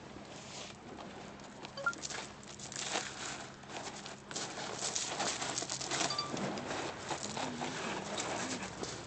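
Shingle pebbles crunching and rattling in a dense crackle of clicks that grows louder about two seconds in and is loudest around five to six seconds. A dove coos low near the end.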